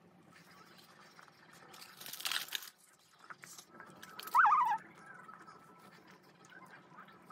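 Quiet eating sounds: soft chewing of a pastry, with a short crinkle of a paper baking cup about two seconds in and a brief wavering high-pitched sound a little after four seconds.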